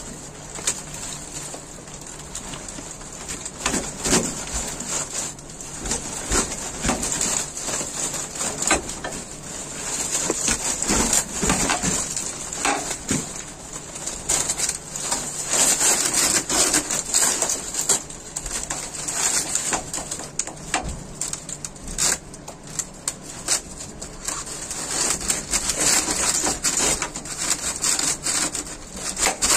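Plastic parts of a cooling-tower sprinkler assembly being worked loose and handled: irregular knocks, clatter and scraping, over a steady high hiss.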